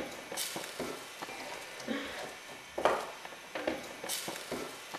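Food sizzling in a frying pan, with a wooden spatula scraping and knocking against the pan at irregular moments.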